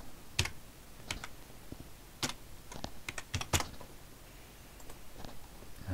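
Typing on a computer keyboard: scattered keystrokes, with a quick run of several about three seconds in.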